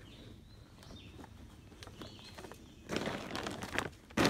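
A tarp and cord being handled: faint scattered ticks, then about three seconds in a stretch of rustling, and near the end a short, loud rustle.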